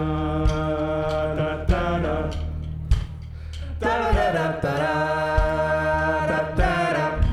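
Live band playing: long held melody notes that slide into pitch, over a sustained bass note and a regular kick drum thump.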